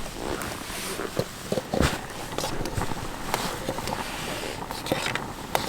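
Scattered light knocks and clicks over rustling, from handling and moving about, with a few stronger knocks in the first two seconds.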